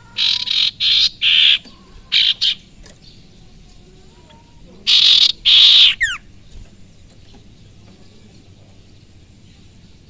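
Caged sirtu songbird giving harsh, scratchy call bursts: three in the first second and a half, two short ones after about two seconds, then two longer ones around five seconds that end in a quick falling whistle.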